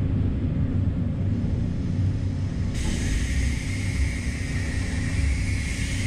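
Sawmill machinery running: a steady low rumble from the band headrig and live-roll conveyors. A higher hiss cuts in sharply about three seconds in.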